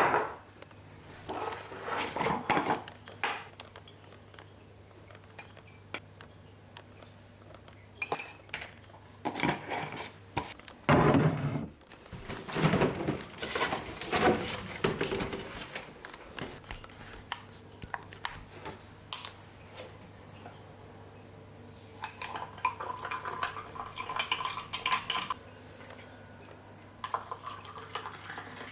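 Irregular clattering and clinking, like dishes and cutlery being handled, in scattered bursts over a steady low hum.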